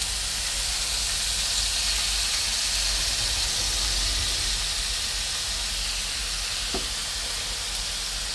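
Diced bacon and wet grated courgette sizzling in a hot frying pan, a steady hiss as the watery courgette goes in.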